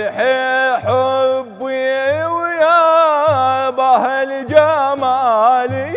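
Solo male voice singing a long, wavering, melismatic line of Arabic devotional praise (madih), with large frame drums beating a slow, even pulse about once every second or so.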